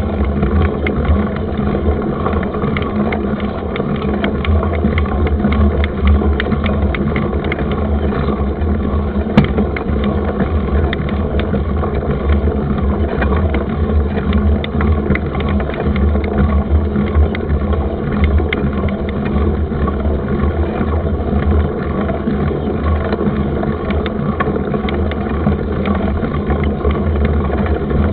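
Wind rushing and rumbling over the action-camera microphone while riding a mountain bike. Frequent small rattles and knocks come from the bike jolting over rough ground, with one sharper knock about nine seconds in.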